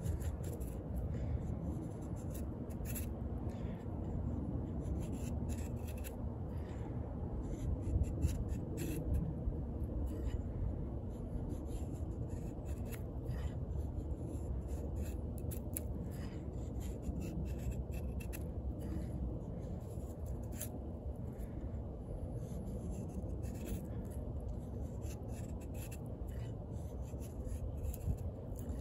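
The 420HC steel blade of a fixed-blade clip point hunting knife shaving thin curls off a wooden stick to make a feather stick. Repeated short, light scraping strokes, irregularly spaced.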